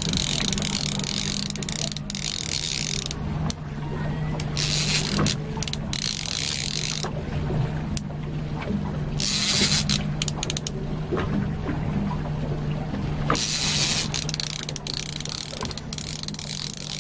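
A conventional fishing reel whirring and clicking in bursts of one to three seconds as line is wound or run, with separate clicks between bursts, over the steady low hum of the boat's engine running.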